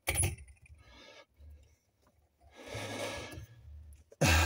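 A sharp click as a plastic fuel-line connector is pushed back onto the fuel pump flange on top of the fuel tank. A heavy breath out follows about three seconds in, and a loud thump comes near the end.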